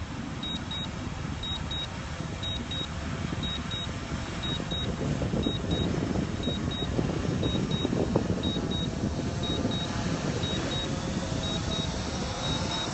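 Drone controller's low-battery warning beeping, two short high beeps about every second and growing fainter in the second half, over the steady rush of wind on the microphone.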